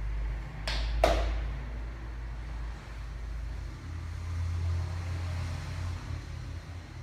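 Two quick sharp cracks about a third of a second apart, the second louder, typical of joints popping under a chiropractic adjustment, over a steady low hum.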